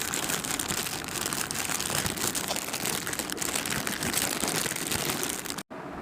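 Packaging crinkling and rustling as it is handled and unwrapped: a dense run of quick crackles that stops abruptly about five and a half seconds in, leaving a quieter hiss.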